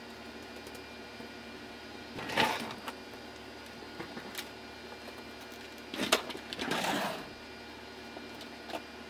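Two short bursts of clatter and rustling as household things are handled and moved, about two seconds in and again about six seconds in, with a few light clicks, over a steady faint hum.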